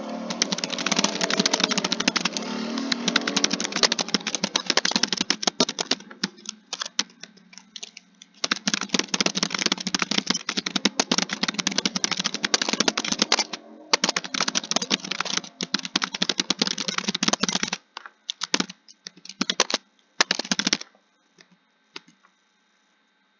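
Computer keyboard typing: fast runs of key clicks with short pauses, thinning to scattered keystrokes about 18 seconds in, then stopping near the end.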